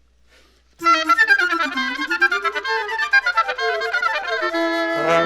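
Woodwind quintet starting to play. About a second in, a wind instrument sets off on a fast run of short, detached notes that dips and climbs again; near the end, lower instruments come in under it with held notes.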